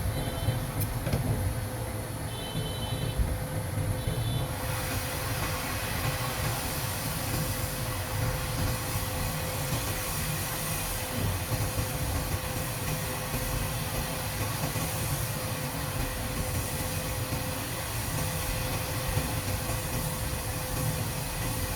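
Hot air rework station blowing a steady hiss while the BIOS chip is soldered back onto the board. The hiss grows brighter about four seconds in.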